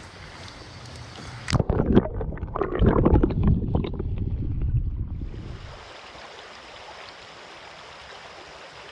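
Creek water heard underwater: a splash about a second and a half in, then about four seconds of muffled, low gurgling and bubbling as the microphone is submerged, giving way to the steady rush of the stream once it is back in the air.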